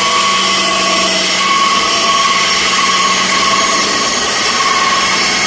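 Delta 10-inch benchtop bandsaw running steadily: a constant motor hum with a higher whine over the blade's noise, fitted with shop-built ball bearing blade guides.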